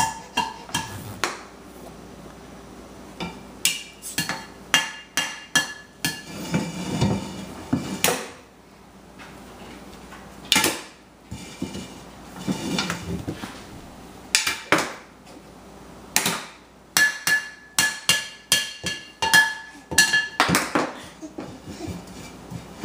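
Irregular banging and clattering of hard objects, many sharp knocks, some leaving a brief metallic ring like pots or utensils being struck.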